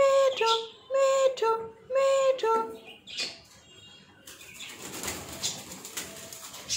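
Cockatiel giving a repeated two-note whistled call, a higher note dropping to a lower one, about once a second for the first three seconds. After that come quieter rustling and light tapping sounds.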